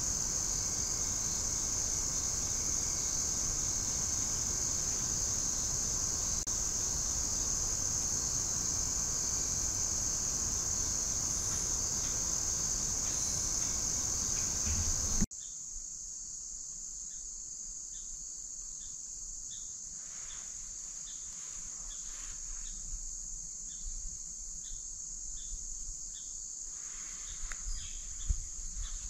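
Evening chorus of crickets trilling steadily at a high pitch. About halfway through it suddenly drops to a quieter level, with a few soft clicks and rustles near the end.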